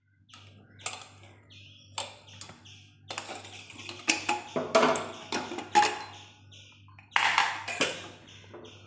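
Aluminium pressure cooker being opened: its whistle weight is pushed with a wooden spatula and the lid is worked free and lifted off. This gives a series of metal knocks, clicks and scrapes, busiest in the middle and with a short loud noisy burst near the end. Birds chirp in the background.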